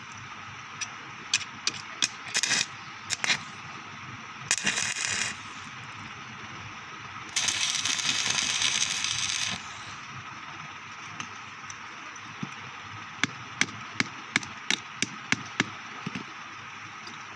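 Electric arc welding: two bursts of arc crackle, a short one about four and a half seconds in and a longer one of about two seconds a little later, over a steady hiss, with scattered sharp clicks before and after.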